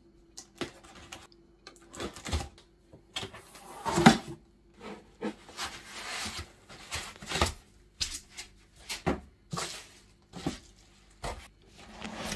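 Cardboard box being unpacked by hand. A knife slits the packing tape, the flaps are pulled open, and a foam packing sheet and plastic wrap are handled, making irregular rustles and knocks, loudest about four seconds in.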